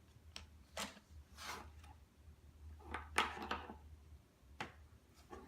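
A few scattered light clicks and short scrapes of plastic toy pieces being handled, with a cluster of them about three seconds in.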